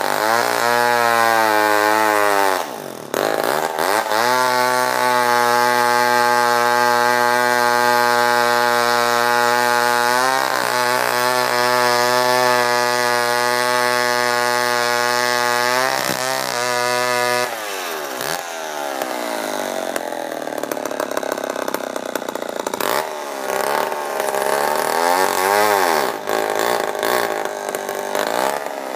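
Homelite Super 66 two-stroke chainsaw cutting logs at full throttle. The revs climb, drop back briefly about three seconds in, then hold steady for about thirteen seconds before rising and falling unevenly over the last ten seconds or so.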